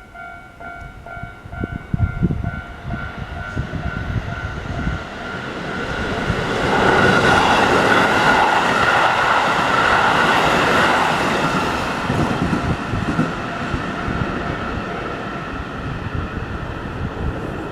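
Keihan electric local train passing over a level crossing, growing to its loudest a third of the way in and then slowly fading. The crossing's warning bell rings in quickly repeated tones at the start.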